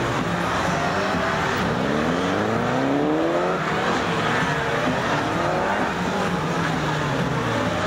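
Several police motorcycle engines running at once, their notes repeatedly rising and falling as the riders throttle up out of tight leaning turns, with the strongest climbs in the first half.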